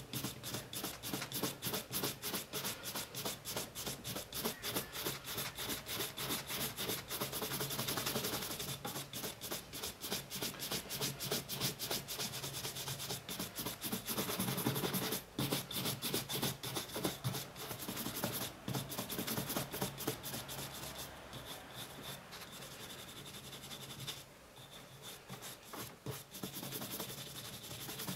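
Horsehair shoe brush buffing wax polish off a black leather boot, in quick back-and-forth swishing strokes at about three a second. The strokes grow lighter and quieter over the last several seconds.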